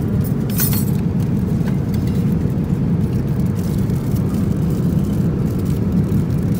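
Steady low cabin drone of an airliner in flight, with a brief high rustle about half a second in.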